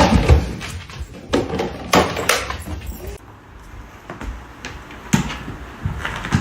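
A handful of separate knocks and thumps, the loudest in the first half.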